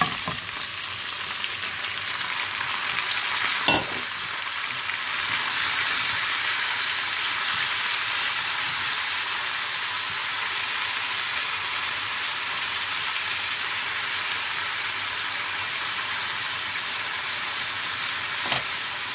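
Chicken and onions frying in a pan, a steady sizzle as sliced tomatoes are added and stirred with a wooden spoon; the sizzle grows louder about five seconds in. A few sharp knocks of the spoon against the pan.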